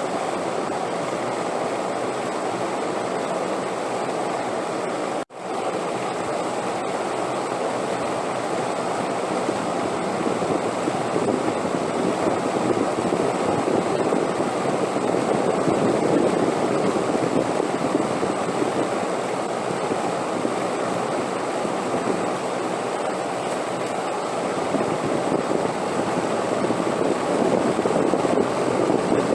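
Steady rushing wind noise, swelling slightly louder after about ten seconds, with a momentary drop-out about five seconds in.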